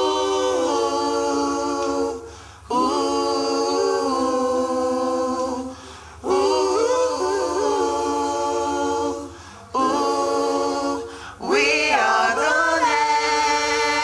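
A vocal group singing a cappella in close harmony: long held chords in several phrases, each broken off by a short pause.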